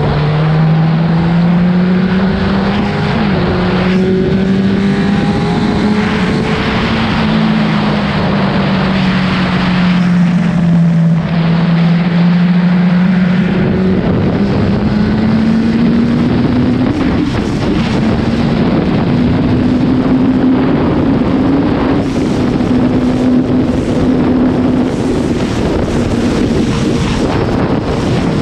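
Suzuki GSX-R1000 sport bike's inline-four engine running steadily at high speed, its pitch sagging a little and then climbing from about halfway before holding level. Wind noise on the microphone runs under it.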